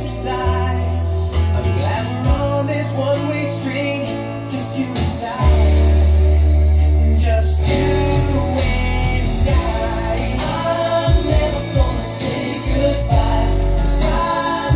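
A song playing, with singing, guitar and deep bass notes held for a second or more at a time.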